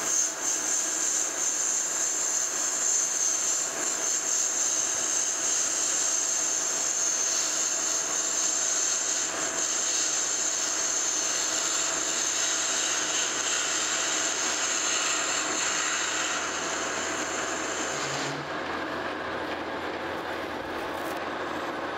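Metal lathe running with the cutting tool fed into the face of a cast iron pulley blank, making a steady machining hiss and whine. The high part of the hiss drops away about three-quarters of the way through, while the lathe keeps running.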